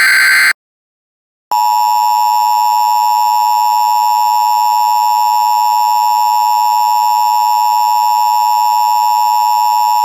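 The end of an Emergency Alert System SAME header data burst, a second of silence, then, about one and a half seconds in, the EAS attention signal starts: a steady two-tone alarm at 853 and 960 Hz that heralds a tornado emergency message.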